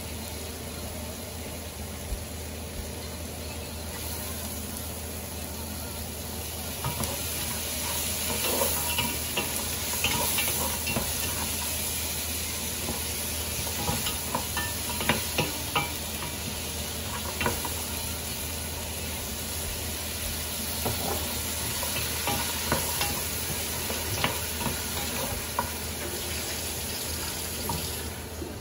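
Pork rinds, onion and tomato sizzling in a nonstick frying pan while a wooden spoon stirs and scrapes through them, with frequent short knocks of the spoon. The sizzle grows louder about seven seconds in.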